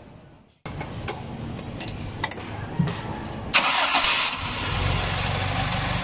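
Toyota 2E four-cylinder carbureted engine being started from cold with the automatic choke closed. It catches suddenly about three and a half seconds in, then settles into a steady idle.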